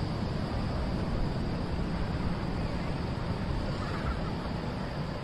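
Surf breaking and washing up a sandy beach, with wind buffeting the microphone in a steady rumble.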